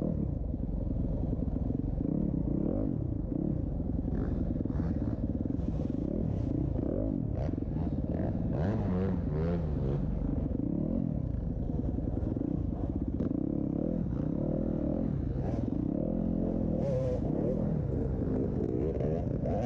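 Several off-road motorcycle engines revving, their pitch rising and falling and overlapping as the bikes race, over a steady low rumble with a few scattered clatters.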